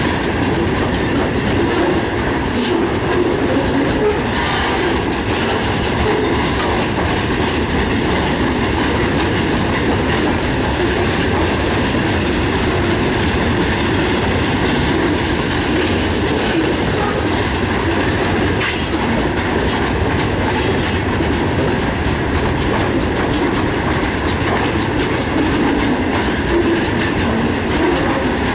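A freight train of railway tank cars rolling past close by. The steel wheels on the rails make a loud, steady noise.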